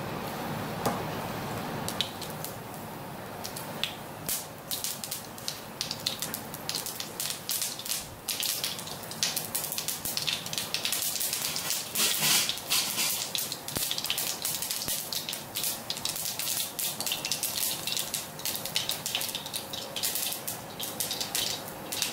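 Mustard seeds sizzling in hot oil and starting to pop: scattered sharp pops from about four seconds in that grow thick and rapid after about nine seconds, over a steady hiss. The seeds are spluttering, the sign that the oil is hot enough and the tempering is done.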